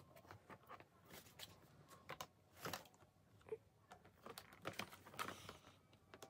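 Faint, irregular clicks and taps of hard plastic parts being handled: a plastic corner-rack shelf panel and its connector piece knocking together as they are turned and tried for fit.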